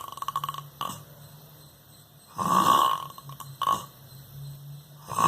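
A person snoring heavily: a loud, rasping snore about every two and a half to three seconds. A fluttering rattle and a low steady drone come between the snores.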